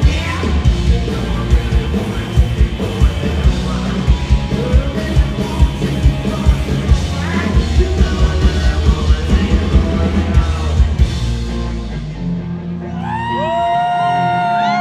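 Live rock band playing loud, with pounding drums, distorted guitars and a shouted vocal. About twelve seconds in, the drums stop and the guitars ring on in long held notes that bend in pitch.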